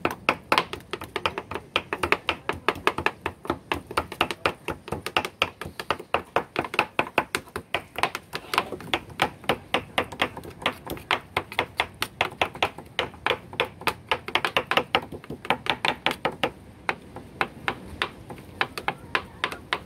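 Two kitchen knives chopping raw tuna meat finely on plastic cutting boards: quick, sharp knocks several times a second, in runs with short pauses.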